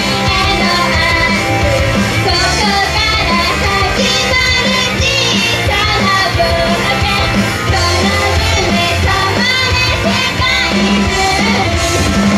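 Live J-pop idol song: young girls singing into handheld microphones over loud upbeat pop music with a steady drum beat, heard through the venue's PA.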